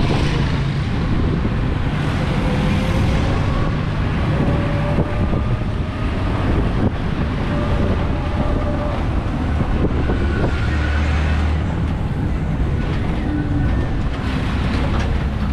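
Steady road and wind noise heard from inside a moving electric tricycle, with a faint whine that comes and goes.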